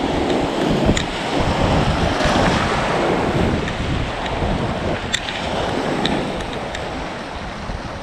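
Sea waves surging and breaking against shoreline rocks, with wind buffeting the microphone; a few faint light ticks sound over it.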